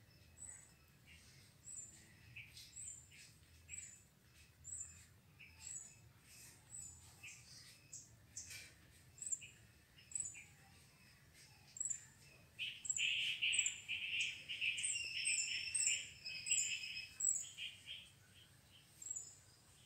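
Small birds chirping: a short high chirp repeats about once a second, and past the middle a louder run of rapid chattering calls goes on for about four seconds.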